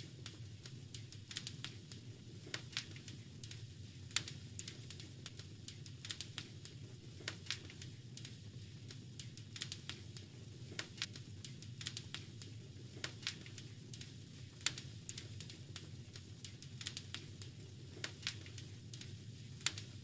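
Wood fire crackling: irregular sharp pops and snaps, several a second, over a steady low rumble of burning logs.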